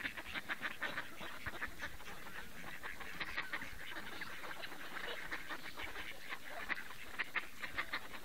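A flock of ducks quacking continuously, many short calls overlapping at several a second.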